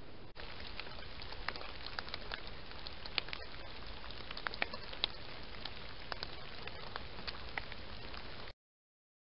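Steady hiss from a trail camera's built-in microphone with scattered light crackles and ticks. It cuts off suddenly near the end.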